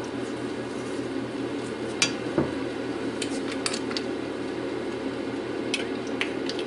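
Light clicks and taps of kitchen handling at a steel skillet, a silicone spatula in the pan and a glass oil bottle's cap being worked, coming in small clusters over a steady low hum.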